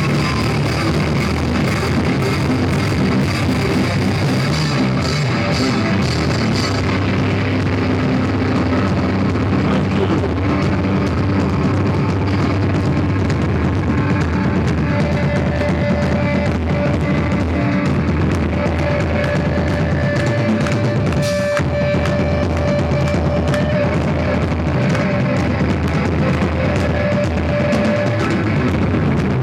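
Live rock band playing loud and steady, with electric guitar, bass and drum kit, in a poor-quality recording.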